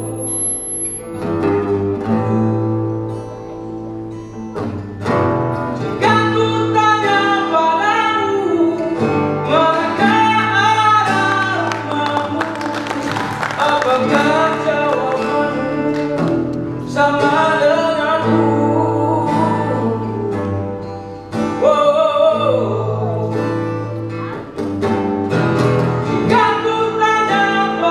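Folk song performed on acoustic guitars with a sung vocal melody, loud throughout.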